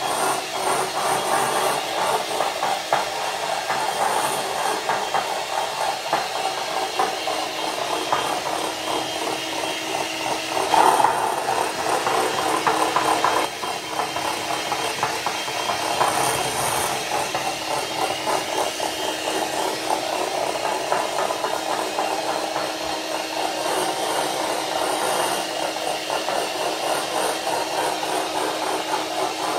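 Electric hand mixer running steadily, its beaters whipping egg yolks and sugar in a glass bowl and rattling against the glass. It gets louder for a couple of seconds about eleven seconds in.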